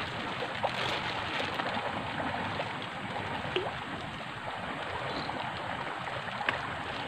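Steady rushing of a flowing river, with a few faint clicks.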